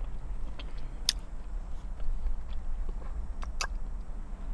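Close-miked chewing of a chicken salad sandwich, with a few sharp wet mouth clicks about a second in and again a little past three seconds.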